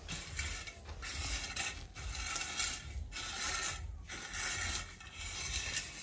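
Metal garden rake dragged through loose crushed-stone gravel in repeated strokes, about one a second, levelling the gravel bed laid for a concrete floor.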